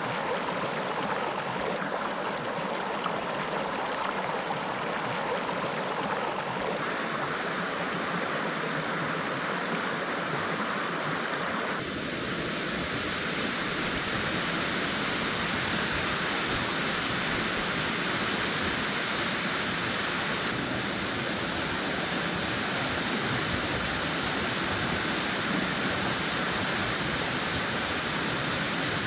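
Shallow rocky stream rushing over stones, a steady wash of running water whose tone shifts abruptly about 7 and 12 seconds in.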